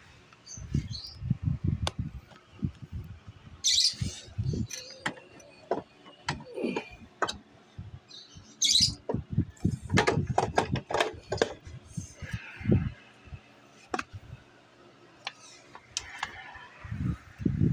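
Scattered knocks and clicks of hands working on a scooter's rear wheel and its new brake disc, with a quick run of clicks about ten seconds in. Birds chirp in the background.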